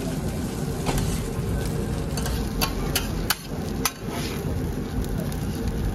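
Metal spatula scraping and chopping masala dosa filling on a flat iron griddle, with several sharp clacks of the blade against the hot plate in the middle.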